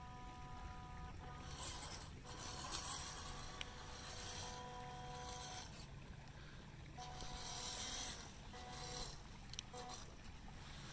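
WPL D-42 RC crawler van driving over ice and rock: its tyres scrape and crunch in rough spells, over a steady whine that cuts in and out.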